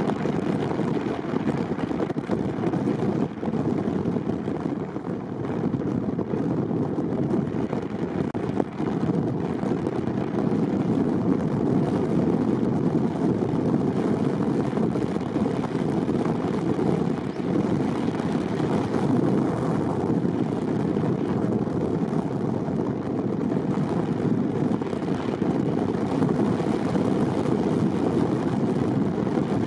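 Steady rumble of a car driving: road and wind noise with no distinct events.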